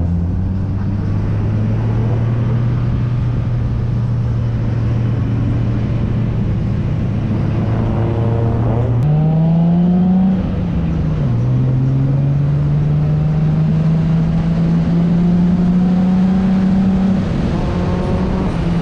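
Car engine running at steady revs, then revving higher about nine seconds in, dropping briefly, and climbing slowly in pitch.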